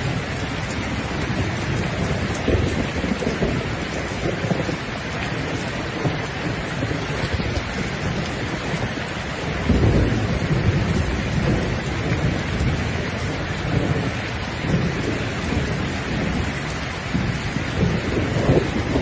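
Steady heavy rain, with low rumbles swelling and fading beneath it, the strongest about halfway through.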